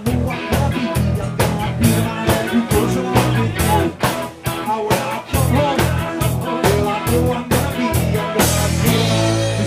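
Live rock band playing loudly: drum kit beating a steady rhythm under guitar, with a man singing into a handheld microphone.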